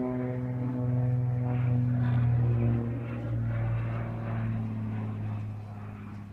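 Propeller airplane engine running overhead, a steady low drone that grows fainter over the last few seconds as the plane moves away.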